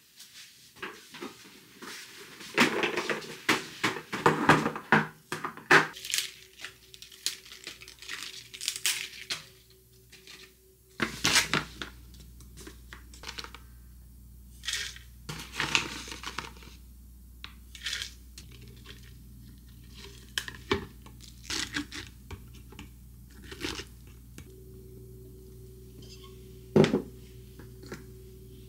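Kitchen food-prep handling sounds: a packaging bag crinkling, rolled oats poured and spooned into a tall jar, and scattered taps and clatter of containers and utensils. A low steady hum comes in suddenly about eleven seconds in.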